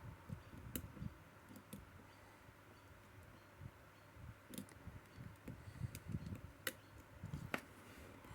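Faint, scattered clicks from a Sezam combination lock being picked and its tumblers worked, with about half a dozen sharp ticks among soft handling bumps.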